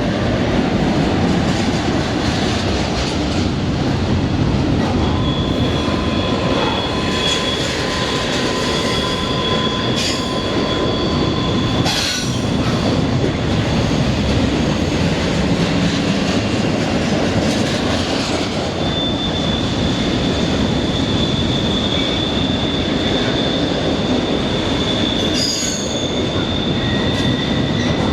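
Norfolk Southern train cars rolling past, a steady rumble of wheels on rail, with high drawn-out wheel squeal that comes and goes and a few sharp clicks.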